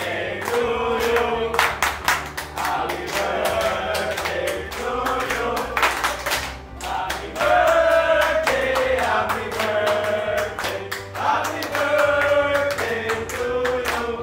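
A group of men singing together while clapping along, with sung notes held over a steady run of hand claps.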